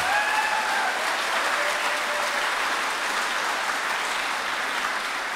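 Audience applauding, with a held voice-like cheer in the first second or so; the clapping eases off near the end.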